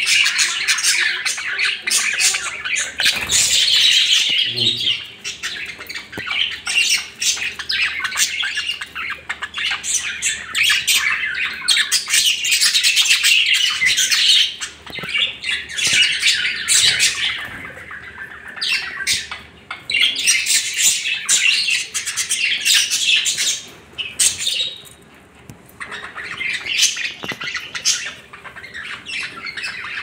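A flock of budgerigars chattering and squawking: dense, overlapping high chirps and squawks, with a couple of brief lulls in the second half.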